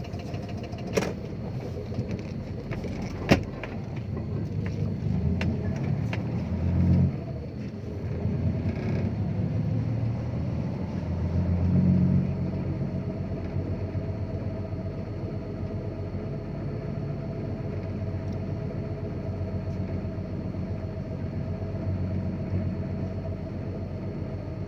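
Dump truck's diesel engine running under way, a steady low drone that swells twice, about seven and twelve seconds in. Two sharp knocks come in the first few seconds.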